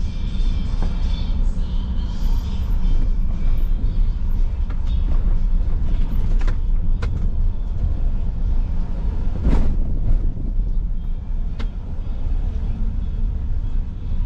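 Car interior road and engine rumble while driving, with a few sharp knocks from the car, the loudest about two-thirds of the way through.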